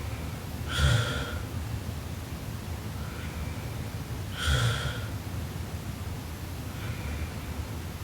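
A sleeping woman snoring: two loud rasping snores about three and a half seconds apart, one about a second in and one near the five-second mark, each preceded by a fainter breath.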